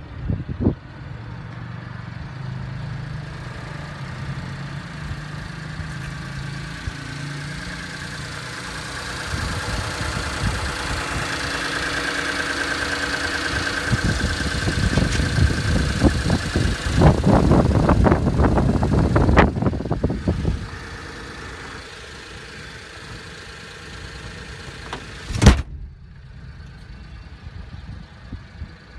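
Mitsubishi Minicab kei truck's engine idling steadily, heard close to the open engine bay, with a whining tone that swells in the middle. A loud clatter comes in for about three seconds past the middle, then a single sharp thump near the end.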